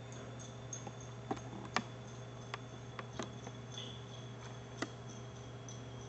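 Faint irregular ticks, about six over a few seconds, over a steady low hum: drops of titrant falling from an open buret into the flask below.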